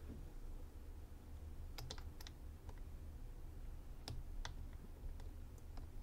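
A handful of faint, scattered clicks and ticks from a flat flag pick working the pins of the IFAM Huno 80 padlock's dimple cylinder while the turner holds tension, as it works pin two, which is binding.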